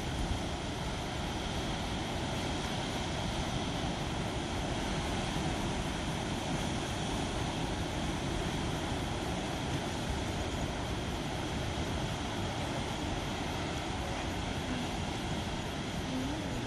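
Steady, continuous roar of heavy surf breaking on a rocky shore, with no separate wave crashes standing out: rough seas stirred up by an approaching typhoon.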